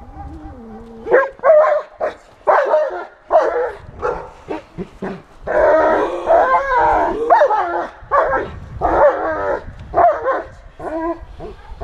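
A German shepherd gives a short whine, then barks loudly and repeatedly from about a second in, with a fast run of barks near the middle. It is barking at a decoy who is provoking it with a jacket during protection training.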